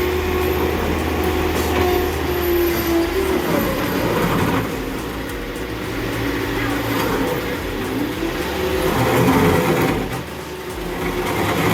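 Heavy machinery engine running, with a steady low hum at first and then rising and falling pitch glides as it works.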